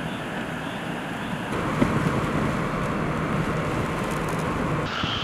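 Steady hurricane wind and rain noise with a vehicle's engine hum underneath. The sound changes abruptly and gets louder about a second and a half in, with a few short knocks.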